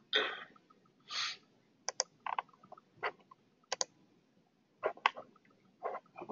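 Irregular clicks of a computer mouse and keyboard, single clicks and quick pairs scattered through, with two short hissing noises in the first second and a half.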